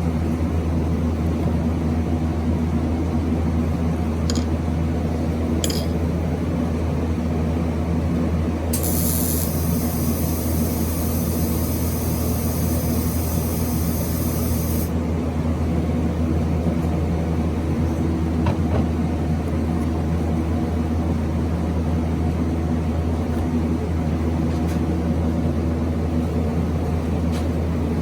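A steady electrical hum. From about nine seconds in, a hiss lasts about six seconds and stops abruptly.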